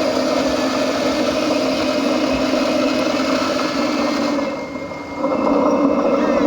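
Motor of a radio-controlled construction model running with a steady whine. It drops off a little past four seconds in and picks up again about a second later.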